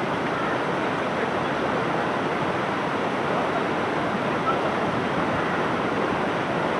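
Steady rushing of a fast mountain stream flowing over rocks, an even, unbroken noise.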